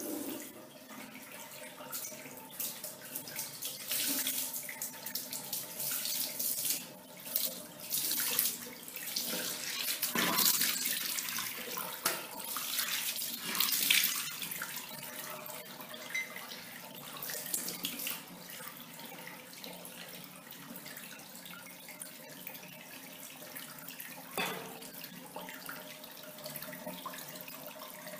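Water running from a tap, splashing in irregular louder surges through the first half, then flowing more steadily.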